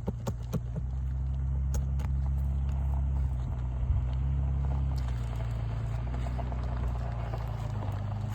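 A motor running steadily with a low, even hum. Several sharp clicks and taps come in the first two seconds, typical of shingle nails being pried out with a hand tool.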